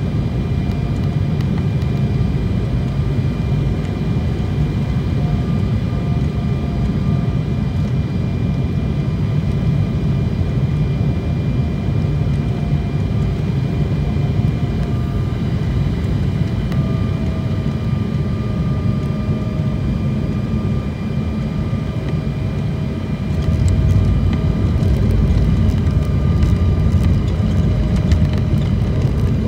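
Jet airliner cabin noise on final approach: the engines' steady drone with a faint whine that slowly sinks in pitch. About 23 seconds in, a louder low rumble with light rattling sets in as the wheels touch down and roll on the runway.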